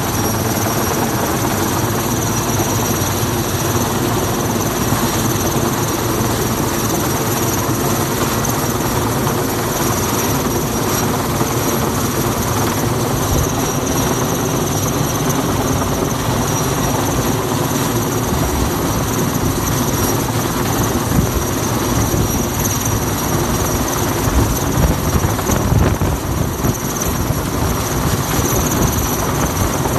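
Sikorsky S-64 Skycrane heavy-lift helicopter hovering overhead with a transmission-tower section slung beneath it. Its rotors and turbine engines run steadily with a constant high whine, a little louder around 25 seconds in.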